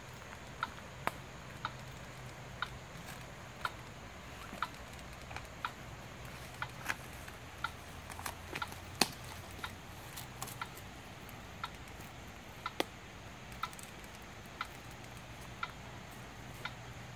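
A short, faint tick about once a second from the portable ground LiDAR rig while it records a scan, mixed with irregular clicks of footsteps on dry leaf litter.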